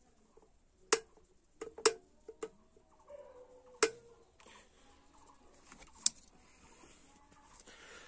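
About six sharp plastic clicks at uneven intervals from a Prestige electric kettle's on/off switch and handle being worked by hand. The owner finds the switch faulty: it cuts off at the lightest press.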